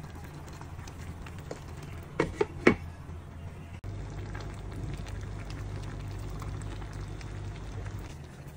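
A glass pot lid clinks onto a metal pan of simmering vegetables: three sharp clinks about two seconds in. Under it runs a steady low hum with faint bubbling and crackling from the pan.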